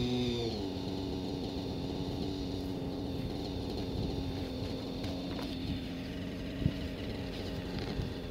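Align 600 nitro radio-controlled helicopter's glow engine and rotor running steadily; the pitch drops about half a second in, as the throttle comes back, then holds at the lower pitch. A single sharp click comes about two-thirds of the way through.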